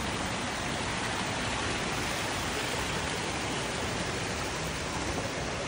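Artificial indoor waterfall and stream splashing steadily over rocks into a pool, a constant rushing of water.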